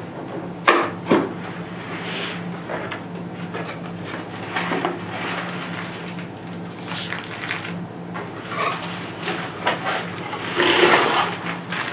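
Cardboard box and plastic packaging being handled and opened: irregular rustling and scraping with a few sharp taps, busiest near the end, over a steady low electrical hum.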